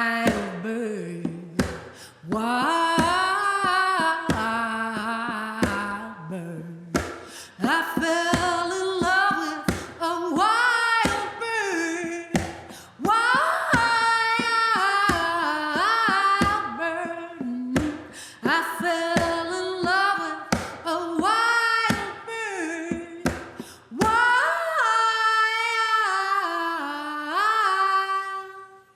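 A woman singing a wordless melody, humming and vocalising with notes that slide up and down, over regular short rhythmic strokes of accompaniment. It ends on a long held note.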